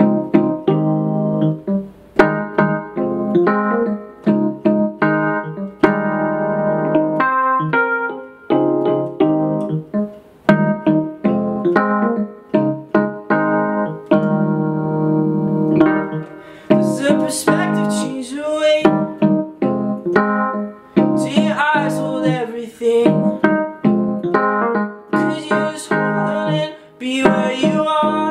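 Piano chords played on a keyboard in a steady, repeating pattern. A man's singing voice comes in a little past halfway.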